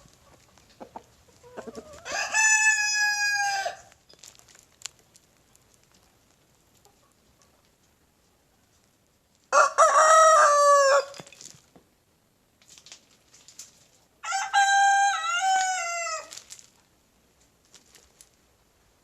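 Rooster crowing three times, each crow about two seconds long, the middle one lower in pitch than the other two.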